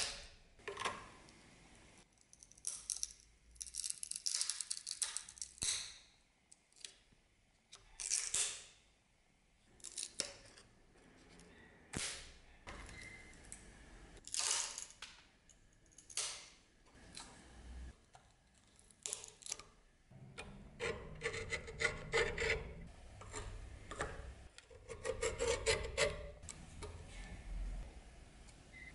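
Old riveted wooden handle scales being pried off a rusty dagger tang held in a bench vise: scraping and rubbing of steel tools on wood and metal, with sharp clicks and knocks. Denser scraping with short squeaks comes in the last third.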